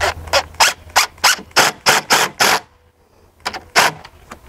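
Cordless DeWalt driver driving screws tight into a railing post through the mounting template, in a quick run of evenly spaced sharp bursts, about three a second, then a short pause and two more bursts near the end.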